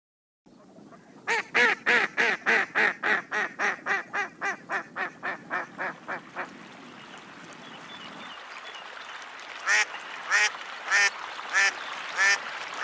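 A duck quacking: a long run of quacks, about three a second, fading gradually over some five seconds. After a pause, a slower series of louder quacks follows near the end.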